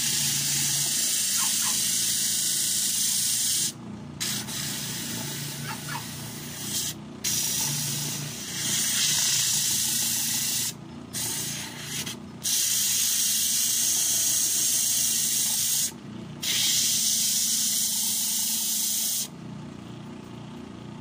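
Wooden block being sanded against a coarse sandpaper disc on a spinning polishing machine: a loud rough hiss in several stretches, breaking off briefly each time the piece is lifted, over a low motor hum. The sanding stops near the end.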